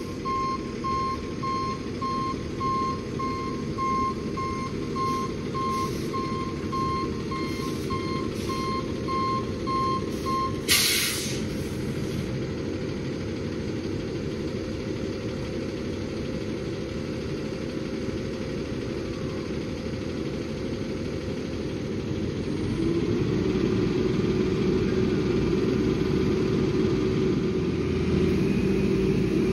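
Flatbed tow truck's reversing beeper sounding over its running engine for about ten seconds, then cutting off with a loud hiss of the air brakes being set as the truck stops. The engine runs on steadily and picks up speed about two-thirds of the way through.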